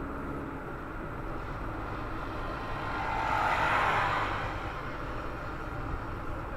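MRF ZLO 195/60 R15 performance tyres humming as the car rolls at low speed, a steady low hum under road noise. A louder mid-pitched swell rises and fades about halfway through.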